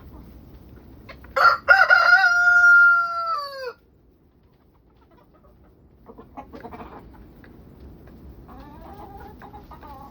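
A rooster crows once, loudly, starting about a second and a half in: a held call of about two seconds that drops in pitch as it ends. Later, quieter clucking from chickens.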